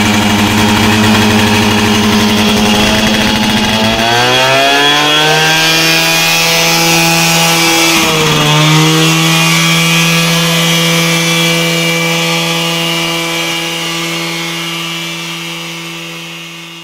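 Yamaha RX 100's two-stroke single-cylinder engine running through its exhaust. It idles steadily, is revved up about four seconds in and held at a higher, steady pitch, with a brief dip and recovery about eight seconds in, then fades out near the end.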